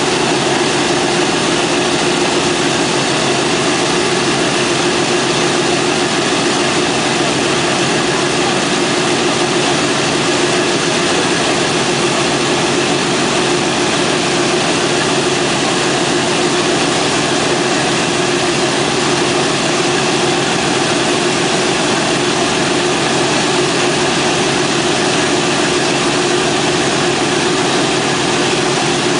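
Boeing B-17 bomber's Wright R-1820 Cyclone radial engines idling on the ground, a loud, steady, unbroken drone with an even hum beneath it.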